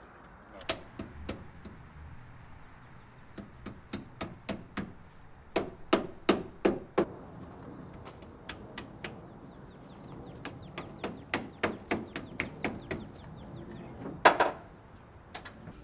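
Irregular knocks and clacks of a rooftop tent being unfolded on a pickup's bed rack: its frame and fittings knocking as it opens, with one loud knock near the end.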